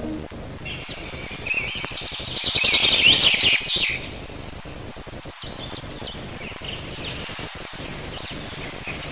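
Songbirds chirping and trilling, busiest and loudest in the first few seconds, then scattered higher chirps.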